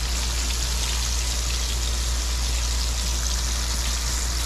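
King fish frying in hot oil: a steady, dense sizzle with a few faint pops, over a low steady hum.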